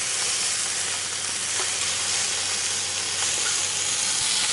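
Food frying in a pan with a steady sizzle.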